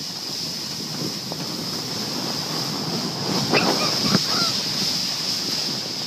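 Wind rushing over the microphone and the steady hiss of a snow tube sliding fast down a snowy hill. A brief cry cuts in about three and a half seconds in.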